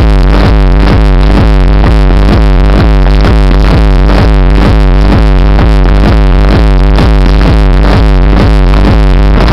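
Loud electronic dance music from a DJ sound system, with a steady kick drum at about two beats a second and synthesizer parts over it.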